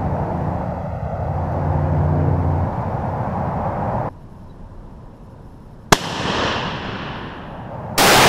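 A hunting rifle fired at a deer: a sharp crack about six seconds in, followed by an echo rolling away for about a second and a half. Near the end a second, louder shot sound starts suddenly and rolls on in a long echo.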